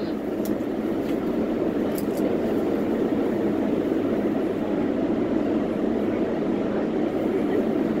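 Steady running noise inside an R142A subway car underway, the wheels on the rails and the car's running gear, with a couple of faint clicks in the first two seconds.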